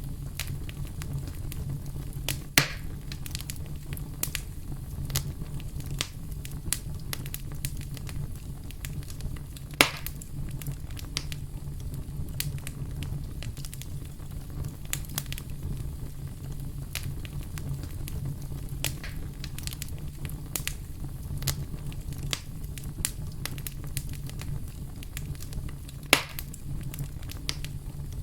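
Wood fire in a fireplace crackling, with a constant scatter of small snaps and three louder pops: about two and a half seconds in, near ten seconds, and near the end. A low steady rumble runs underneath.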